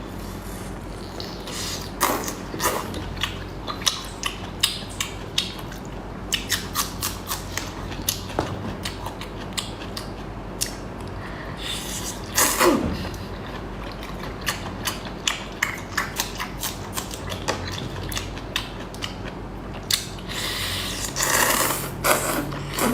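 Close-miked eating sounds: a long run of irregular sharp crunches and crackles as seafood is bitten and chewed, with a falling squeak about twelve seconds in.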